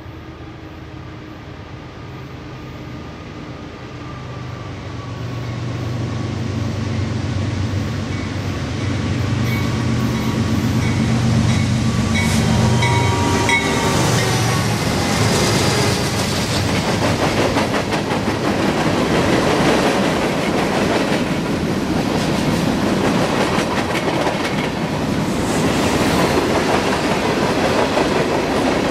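CSX freight train passing close by. Its two GE diesel locomotives, an ES40DC leading a CW40-8, hum steadily and grow louder as they approach and go by. From about halfway the freight cars roll past, with wheels clicking and rumbling over the rails.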